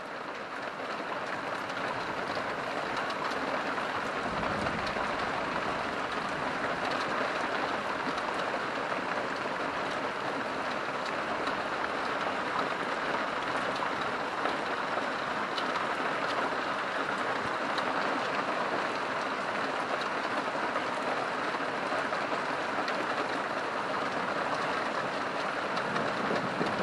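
Steady rain falling, a dense even patter with no breaks. A faint low rumble swells briefly about four seconds in.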